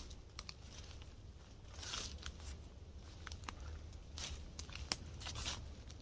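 Footsteps through dry fallen leaves on a forest floor: a rustling swell with each step, about one a second, with scattered sharp clicks of small twigs.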